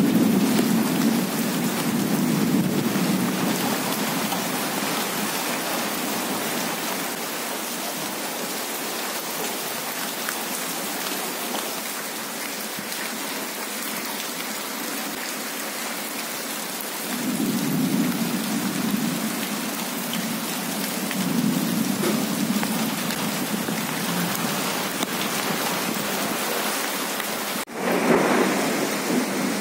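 Heavy rain pouring onto a flooded street and its puddles, a steady hiss. Low rumbling swells near the start and again from about two-thirds of the way in. The sound breaks off sharply near the end and comes back louder.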